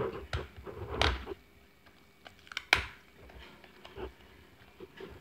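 Hard plastic L.O.L. Surprise ball handled and turned in the hands: scattered plastic clicks and knocks, the sharpest a little before three seconds in.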